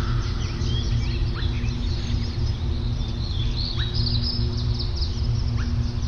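Many birds chirping and calling in short, quick notes over a steady, low sustained music drone.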